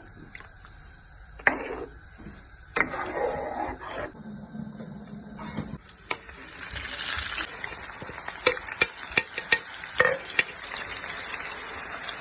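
Food frying in a pan, with scattered knocks and clatter at first; about six seconds in a steady sizzle sets in, with a utensil clicking against the pan as the food is stirred.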